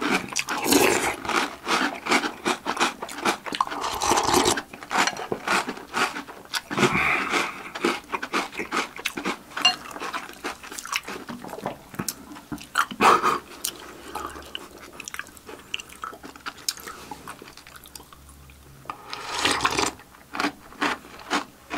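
Close-up crunching and chewing of Oreo O's chocolate cereal eaten from milk, in many short crisp crunches; the cereal is still crisp after soaking about five minutes.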